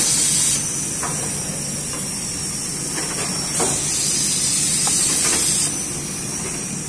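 Muller Martini Amigo Plus perfect binder running: a steady high hiss over a low hum, with scattered light clicks and knocks from the moving machine. The hiss grows louder at the start and again from about three and a half seconds to nearly six seconds in.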